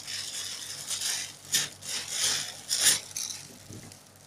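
Clear plastic packaging crinkling in several short bursts as a foam squishy toy inside it is squeezed and handled, dying away near the end.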